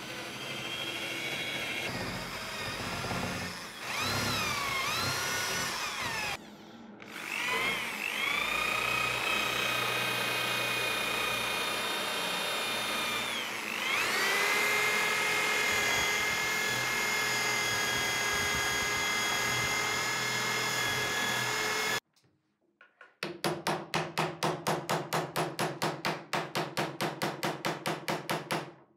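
Electric drill spinning a wire cup brush against walnut wood: a steady motor whine that stops about six seconds in and spins back up, dips in pitch and recovers about halfway, then cuts off about three-quarters of the way through. After a second of quiet comes rapid, even tapping of a hammer on a chisel, about five strokes a second.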